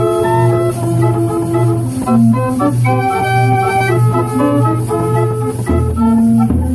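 Band organ playing a tune from a perforated paper music roll, its pipes sounding a melody over a pulsing bass; deeper bass notes come in near the end.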